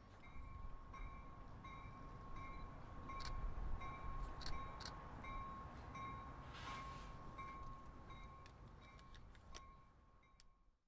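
A railroad warning bell ringing steadily at about two rings a second, over a low rumble with a few sharp clicks. It fades out over the last few seconds.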